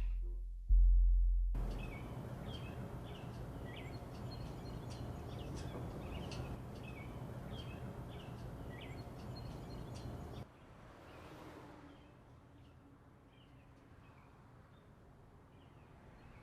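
A single deep boom that fades within a second, then steady outdoor ambience with small birds chirping repeatedly. About ten seconds in, the ambience cuts abruptly to a quieter background with fainter chirps.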